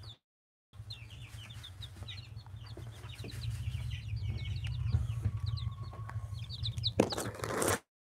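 A brood of young Aseel chicks peeping: many short, high cheeps overlapping one another. A steady low rumble runs beneath, and a loud burst of rustling noise comes near the end.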